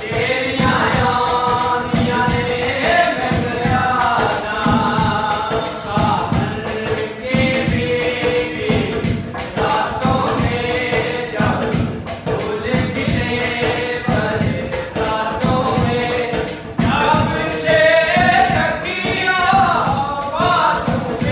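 Male voices singing a folk song, accompanied by hand drumming on an upturned metal cooking pot used as a drum, with steady repeated strokes under the melody.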